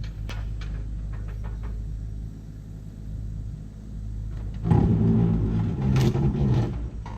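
Engine running steadily with a low hum and a few light clicks, then louder for about two seconds after the middle before settling back.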